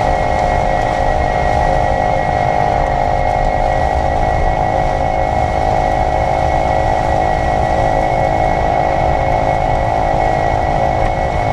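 Steady mechanical whir from a 2022 Kia EV6's front drivetrain in Eco mode, over a low road rumble; it holds an even pitch through the stretch. The owner hears it only around 28–30 mph in Eco and Normal mode, and it goes away when i-Pedal engages the front motor.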